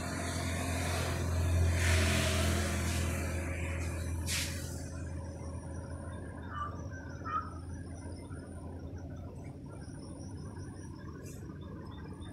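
A steady low hum with a road vehicle passing, swelling to its loudest about two seconds in and fading away, and one sharp click a little after four seconds.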